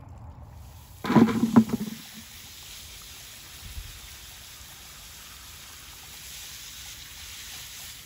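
Garden hose spray nozzle spraying water onto a pile of freshly dug potatoes, a steady hiss of spray. A brief loud burst of sound about a second in.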